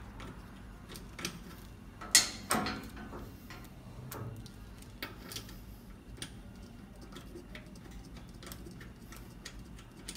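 Metal clinks and ticks of a high-pressure air hose's threaded fittings and a wrench being worked on a breathing-air compressor's fill outlet, with a louder clank about two seconds in.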